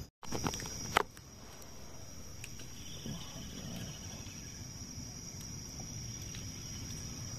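Steady high-pitched chorus of night insects, with a single sharp click about a second in.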